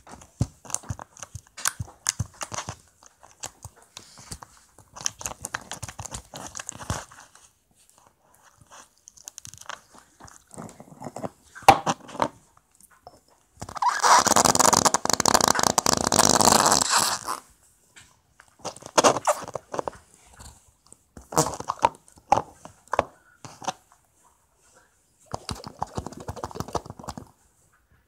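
Blue slime being squeezed and pressed by hand, giving irregular sticky crackles and pops in short clusters. About halfway through comes a longer, louder stretch of dense crackling.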